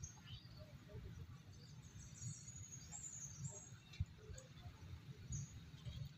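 Faint outdoor background: small birds chirping high and thin in the distance for a second or so near the middle, over a low steady rumble, with one sharp tick about four seconds in.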